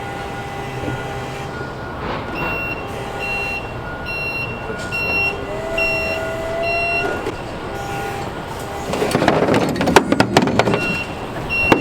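A vehicle's reversing alarm beeping steadily, about one and a half beeps a second, over a running machine. Heavy clattering and knocking of loose metal takes over about nine seconds in, and the beeping resumes near the end.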